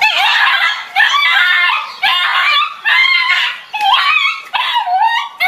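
A dog yelping and squealing in a rapid string of about six high-pitched, wavering cries.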